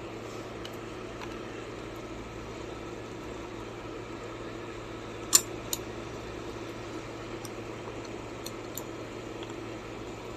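A few scattered sharp clicks over a steady hum. The loudest click comes about halfway through, a smaller one follows just after, and several faint ones come later.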